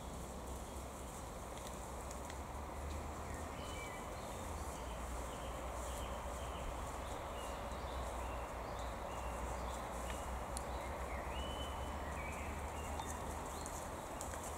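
Outdoor woodland ambience: a steady low rumble and hiss with short bird chirps scattered through it, and faint rustling and crackling of dry leaves as wild boar piglets root through the leaf litter.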